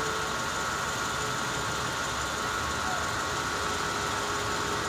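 Steady mechanical hum with faint high, level whining tones, such as an idling engine or ventilation machinery gives.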